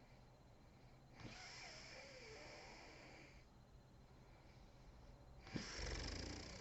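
Sleeping woman snoring: a long airy breath about a second in, then, after a sharp click near the end, a louder and deeper snore.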